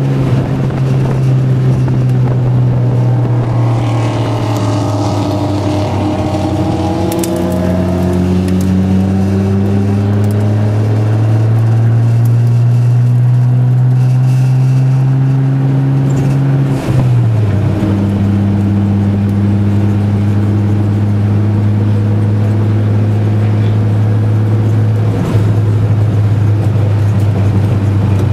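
Turbocharged Datsun 260Z's straight-six engine under load, heard from inside the cabin on a track lap. The engine note climbs slowly and steadily for several seconds, drops suddenly about two-thirds of the way through, then runs on at an even pitch.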